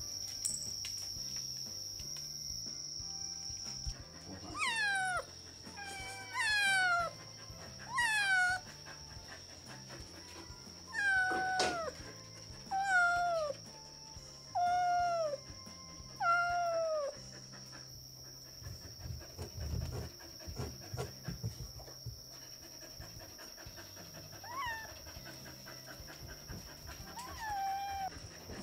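A domestic animal giving a run of seven drawn-out calls that each fall in pitch, about one every second and a half to two seconds, then two fainter calls near the end. A single sharp knock comes in the middle of the run.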